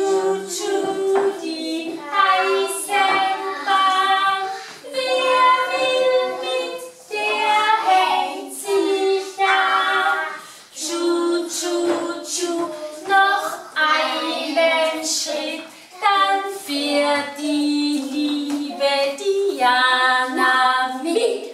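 Young children singing a song together, joined by a woman's voice, in phrases with brief gaps between them.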